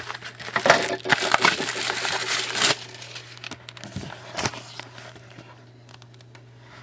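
Wrapping on a sealed box of hockey trading cards being torn open: crinkling and tearing for about three seconds, then a few light rustles and clicks.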